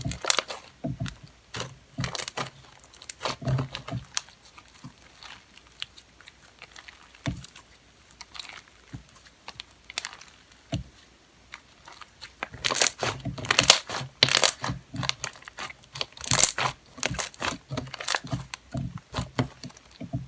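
Homemade slime being squished and stretched by hand, giving runs of sticky crackling and popping. It is busy at first, sparse in the middle, and dense again in the second half.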